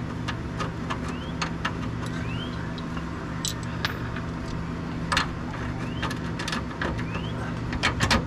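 Hand tools clicking and clinking against metal while working loose a rear-suspension bolt under a car: irregular sharp clicks with a few short rising squeaks, over a steady low hum.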